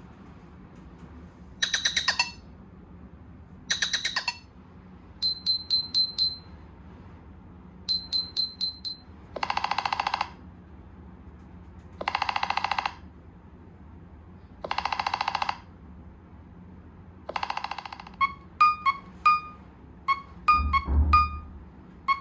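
Nothing Phone (1) ringtones and notification sounds played one after another from the phone's speaker. First come clusters of short electronic beeps, then several buzzy tones about a second long, repeating every two to three seconds. Quick chirping notes follow near the end.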